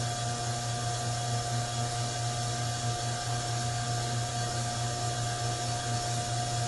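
KOENG KBL-3000 on-car brake disc lathe running, its motor turning the car's brake disc on the hub with a steady hum and a constant whine.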